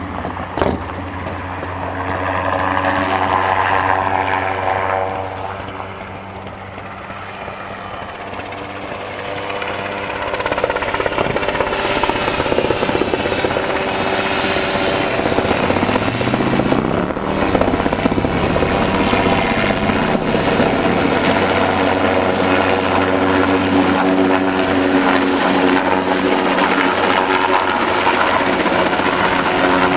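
Helicopter flying close overhead with a long sling line hanging beneath it, its rotor and engine making a steady sound with several held tones. It dips for a few seconds early on, then grows louder partway through as it comes nearer, with a brief sliding shift in pitch as it passes.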